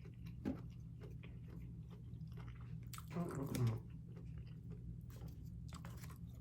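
Close-miked chewing and wet mouth clicks and smacks of a person eating a takeout meal, louder about three seconds in.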